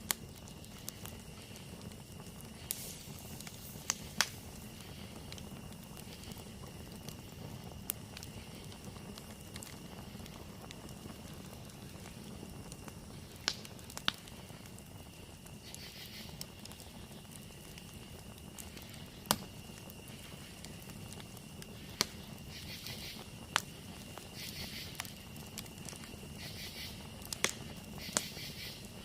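Campfire crackling, with sharp pops every few seconds. Behind it runs a steady high-pitched drone of night insects, joined in the second half by bursts of faster pulsing insect calls.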